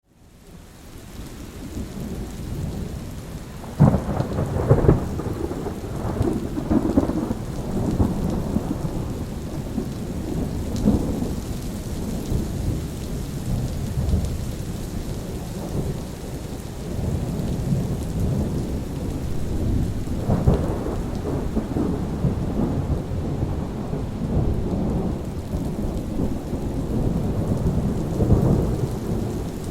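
Steady rain with rolling thunder, fading in over the first few seconds. A sharp thunderclap comes about four seconds in and another about twenty seconds in, each followed by long low rumbling.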